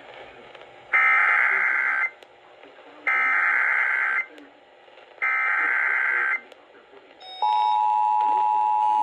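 Emergency Alert System activation: three bursts of SAME header data tones, each about a second long with a second's gap between them. About seven seconds in, the steady two-tone EAS attention signal starts.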